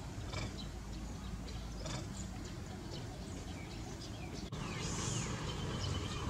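Outdoor ambience: scattered short, high chirping calls over a low steady rumble. About four and a half seconds in, the background jumps abruptly a little louder and a few gliding calls follow.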